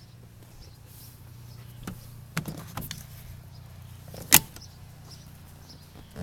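A few light clicks and knocks as a hinged seat lid over a storage space is handled, then one sharp knock about four seconds in, all over a low steady hum.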